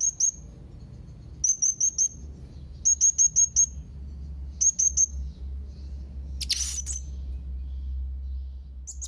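Young blue-crowned hanging parrot (serindit) calling: quick runs of three to five very high, shrill chirps, repeated every second or two, with one louder, harsher burst about six and a half seconds in. A steady low hum runs underneath.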